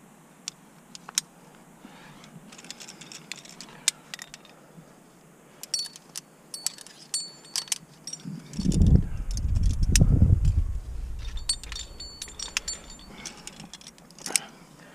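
Metal carabiners of climbing quickdraws clinking and jingling on a harness as they are handled and moved, in many scattered light chinks. A loud low rumble comes about halfway through and lasts a couple of seconds.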